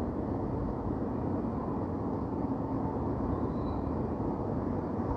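Steady low rumble of city ambience: distant traffic noise, even and unbroken, with most of its weight in the low range.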